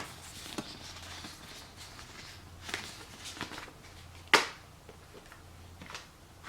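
Handling of iPhone packaging: a few light clicks and rustles of cardboard and paper, with one sharper knock about four seconds in, over a faint steady low hum.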